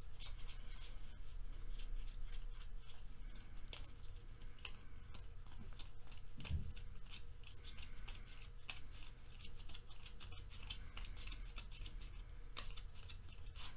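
A stack of baseball trading cards being flipped through by hand, one card after another, giving many quick papery flicks and slides.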